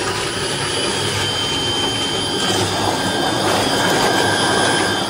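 Liquid-soap homogenizer running: its electric motor hums steadily with a thin high whine over a steady rushing noise as the shafts agitate the liquid in a stainless tank.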